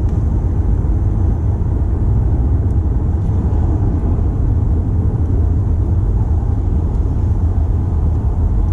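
Steady low rumble of a Toyota C-HR 2.0 under way, engine and road noise mixed together, with no rise or fall in pitch.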